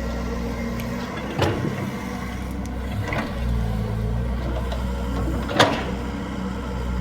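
Excavator's diesel engine running steadily, with two sharp metallic knocks about four seconds apart and a softer one between them.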